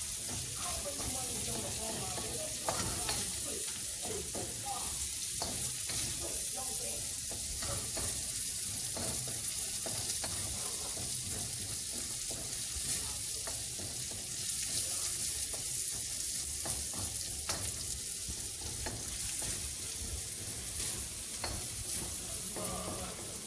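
Onions, garlic and peppers sizzling in hot oil in a pan, with a utensil stirring and scraping them now and then.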